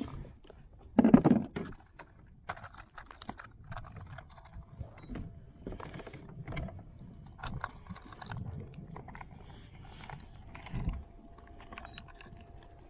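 Metal clinks, rattles and knocks of fishing gear being handled in a kayak while a bass is being weighed. There is a loud thump about a second in.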